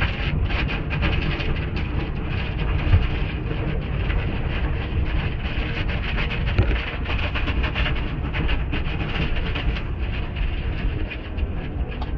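Automatic car wash heard from inside the car: hanging cloth wash strips slapping and swishing across the windshield and body in a dense, uneven patter over a low rumble.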